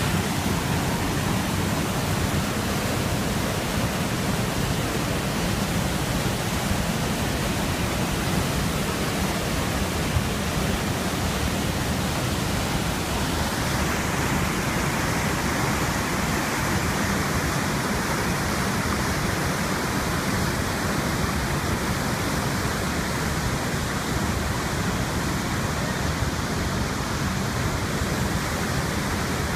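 Steady rush of a waterfall: heavy white water pouring over the falls into a mountain river. The tone of the rush changes about halfway through and turns brighter and more hissing.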